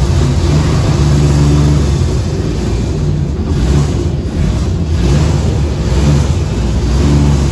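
A WWII DUKW amphibious truck's GMC straight-six petrol engine running loud under way, heard from the open cab, its revs rising and falling as it is driven.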